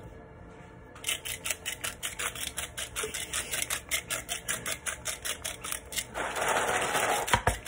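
Hand-twisted salt grinder ratcheting as it grinds salt crystals, a fast run of dry clicks starting about a second in and growing denser near the end.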